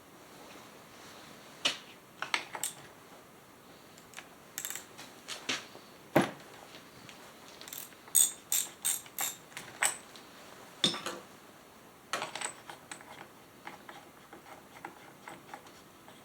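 Scattered sharp metallic clicks and knocks of hand tools and parts being worked on an old Remington SL9 chainsaw, with a run of five or six quick high clicks a little past the middle.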